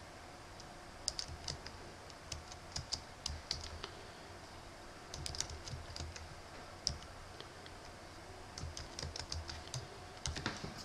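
Computer keyboard keys clicking in several short bursts of typing, with pauses of a second or two between them.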